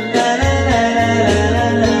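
Instrumental passage of a pop song, with sustained chords over a repeating bass line.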